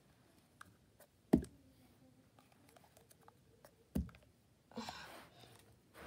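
A plastic tub of slime flipped and landing on carpet: two dull thuds, a loud one about a second in and a softer one about four seconds in, followed by a brief rustle.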